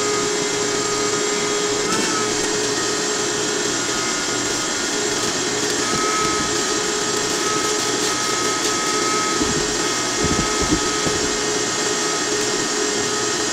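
Shop vac running steadily: a constant whine over a rushing hiss, with a few low thumps about ten seconds in.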